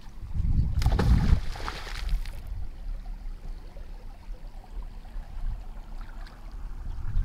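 A thrown magnet on a rope splashes into the river about a second in, a short hissing splash lasting a second or so, over a low steady rumble.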